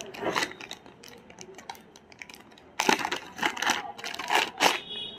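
Clear plastic bag crinkling and crackling as it is handled, in irregular bursts, sparse at first and denser in the second half.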